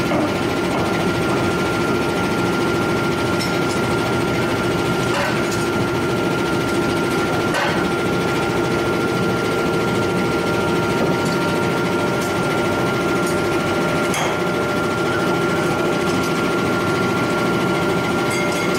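Steady drone of forge-shop machinery with a constant high whine, and a few light metallic clinks as tongs handle a red-hot steel flange forging.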